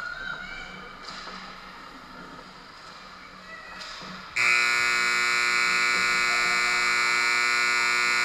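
Ice arena buzzer sounding one long, loud, steady tone. It starts suddenly about four seconds in and cuts off after about four seconds. Before it there is only quieter rink noise.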